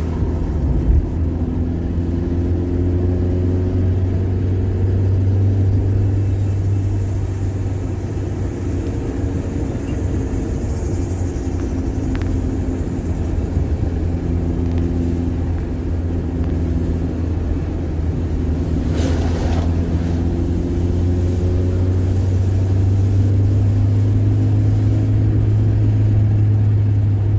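A car's engine and road noise, heard from inside the cabin while driving: a steady low rumble with an engine hum that rises and falls gently. A brief rush of noise comes about two-thirds of the way through.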